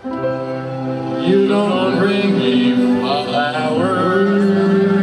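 Men singing into microphones over music with held, sustained chords; the voices come in about a second in.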